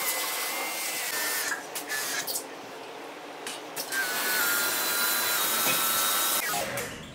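Small electric pressure washer running, its motor whining over the hiss of the water jet spraying a split AC indoor unit's blower wheel clean. It dips briefly a few times and stops shortly before the end.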